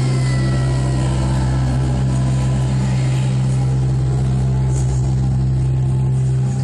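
Loud, steady low-pitched drone that holds one pitch without a break.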